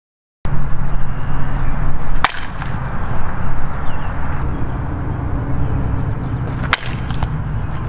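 Two sharp cracks of a softball bat hitting a ball, about four and a half seconds apart, over a steady outdoor rumble with a low hum.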